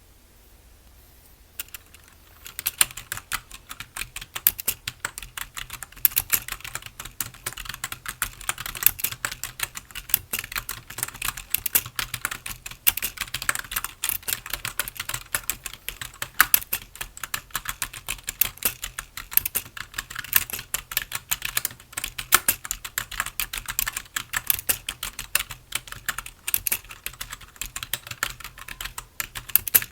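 Continuous fast typing on a computer keyboard: dense, irregular key clicks that start about a second and a half in.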